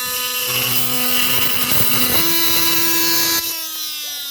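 Milwaukee oscillating multi-tool running with a steady high whine, its blade cutting into material from about half a second in. About three and a half seconds in the cutting stops and the motor's whine falls in pitch as it winds down.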